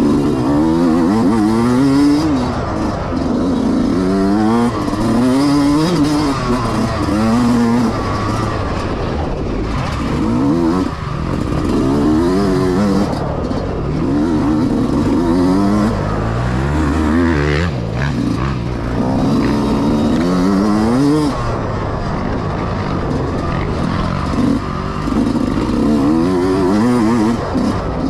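Yamaha YZ125X two-stroke dirt bike engine under hard riding, its revs climbing and dropping again and again as the throttle is worked.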